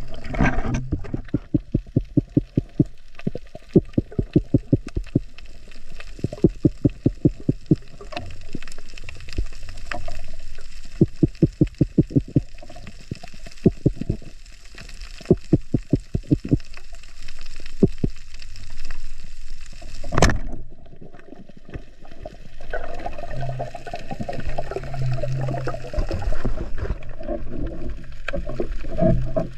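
Muffled underwater sound heard through a camera housing: low water noise with repeated runs of rapid gurgling pulses, about five a second. A sharp knock comes about twenty seconds in.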